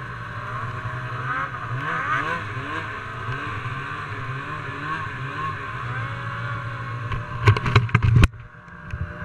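Snowmobile engine running at speed, heard from on board, its pitch rising and falling with the throttle. About seven and a half seconds in there is a quick run of loud knocks and clatter, then the sound drops away suddenly.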